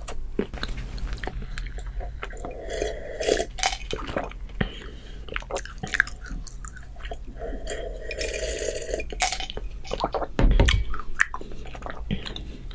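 Close-miked mouth sounds of eating and drinking: chewing and smacking, then sips and swallows of a drink from a glass. A loud low thump comes about ten and a half seconds in.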